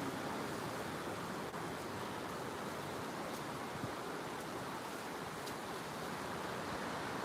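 Steady rushing wind with no breaks, strong winds blowing across the scene.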